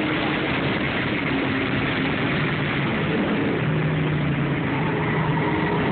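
Ford Mustang's engine running at speed on track, heard from inside the cabin over road and wind noise; its note steps down lower about three and a half seconds in.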